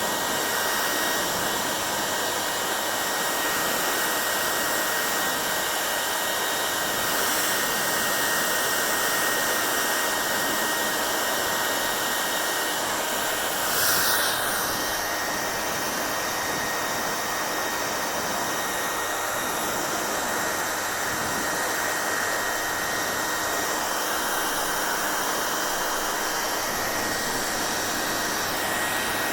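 Hair dryer running steadily, a constant rushing blow of air with a thin high whine from its motor. About halfway through there is a brief louder whoosh.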